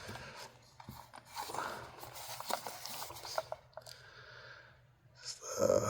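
Handling noise of a folding knife and its wrapping: rustling, light scraping and scattered small clicks.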